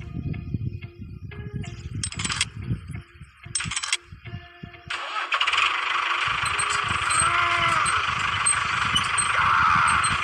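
Scattered knocks and clatter, then about five seconds in a tractor engine sound starts up and runs steadily as the towing tractor's wheels spin.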